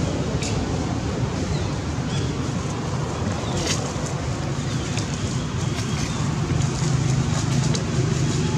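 Steady low hum of outdoor background noise, like distant traffic or a running motor, with scattered faint clicks and rustles.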